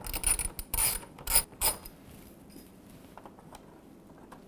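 Ratcheting screwdriver clicking in short runs as it backs out the T20 Torx screws of a dishwasher door latch, stopping about two seconds in; only faint handling ticks follow.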